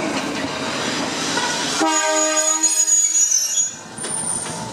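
Fukui Railway 770-series articulated tram rumbling past at low speed, then its horn sounding one steady blast of about two seconds that cuts off sharply.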